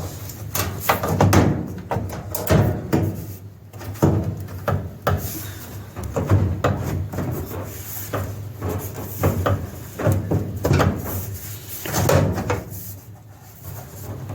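Irregular knocks, clunks and rattles of dryer cabinet parts being handled and fitted during reassembly, over a steady low hum.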